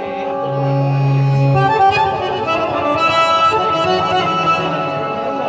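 An accordion playing a melody over sustained chords, with a low held note in the first couple of seconds.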